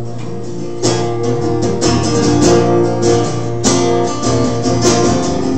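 Acoustic guitar strummed, chords ringing on between strokes that come about once a second.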